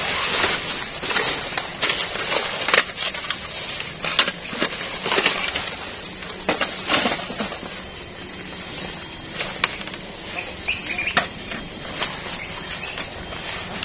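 Irregular rustling with sharp clicks and knocks, dense for the first half and sparser after, over a steady faint high-pitched drone; a few short chirps about eleven seconds in.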